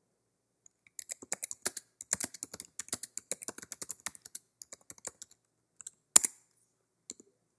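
Typing on a computer keyboard: a quick, uneven run of keystrokes starting about a second in, then one louder key strike about six seconds in and a couple of faint taps near the end.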